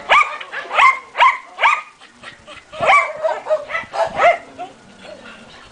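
A dog barking: about six short barks in the first four and a half seconds, each one jumping up in pitch and then dropping, before the barking stops.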